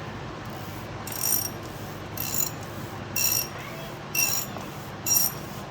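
Ratchet wrench clicking in short bursts about once a second, one burst per back-stroke of the handle.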